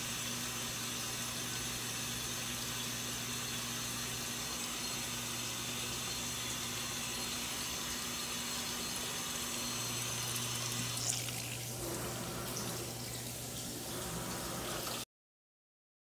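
Black+Decker portable washing machine filling: water runs steadily through the inlet hose with a constant low hum, stopping abruptly about a second before the end.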